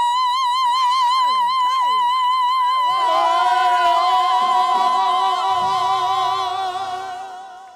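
A gospel singer holds a long, high final note with a strong vibrato. Brief falling cries sound under it in the first two seconds. About three seconds in, lower voices or instruments join in a sustained chord, and everything fades out at the end of the song.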